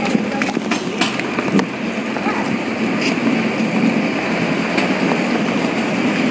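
Wheeled luggage rolling along a jetty deck: a steady rumble with occasional sharp clicks as the wheels go over the deck.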